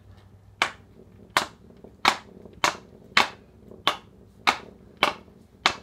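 Hockey stick knocking sharply in a steady rhythm during stickhandling practice with a training ball, about nine knocks at roughly three every two seconds.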